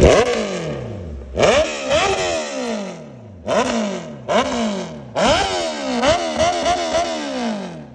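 Honda CBR650R's inline-four engine revved on the stand in a series of sharp throttle blips, each jumping up in pitch and falling back. There are about five big blips and a quick run of short ones near the end.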